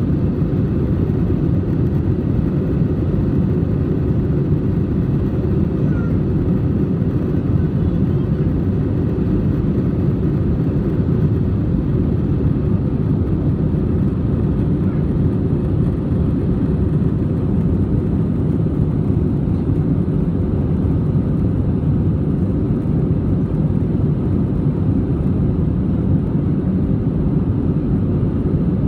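Steady, low cabin noise of an Airbus A320-200 climbing after take-off: engines and airflow heard from inside the cabin over the wing.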